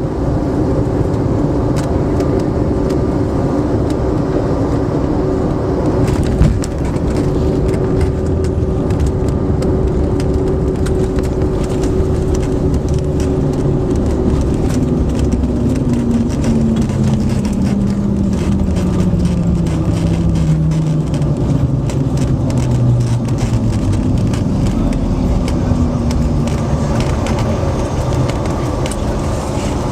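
Airliner cabin noise during landing: a loud, steady rumble of engines and airflow. A brief bump comes about six seconds in. Midway through, the engine tone falls steadily in pitch over several seconds as the aircraft slows.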